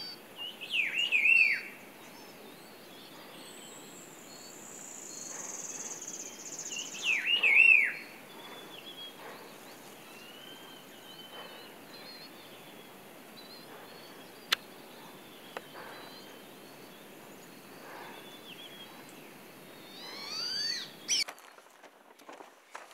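Wild birds chirping and calling in scrub woodland: short down-slurred calls come loudest about a second in and again around seven seconds, with scattered chirps in between and a thin, high, steady note lasting a few seconds, over a soft steady background hiss.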